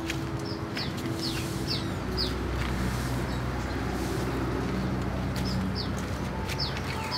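Small birds chirping, a string of short, quick down-slurred chirps repeating about once or twice a second, over a low steady rumble that comes in about two seconds in.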